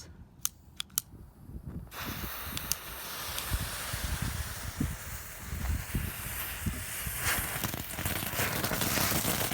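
Two Phantom 'Tanks with Sparks' novelty ground fireworks spraying sparks: a few sharp clicks, then a dense hiss with crackle that starts about two seconds in and grows louder toward the end.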